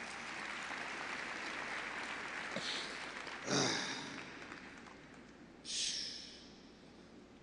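Crowd in a large arena applauding after a speaker's closing words, an even wash of clapping that fades away over several seconds. A thump with a short hiss comes about halfway through, and another short hiss near the end.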